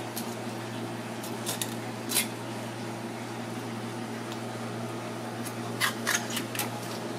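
Filleting knife cutting along a cod's backbone, with sharp crunching clicks as the blade passes through the bones: a few near two seconds in and another cluster around six seconds in. A steady machine hum runs underneath.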